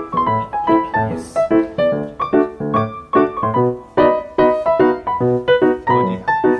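Background music: a piano playing a steady stream of quick notes.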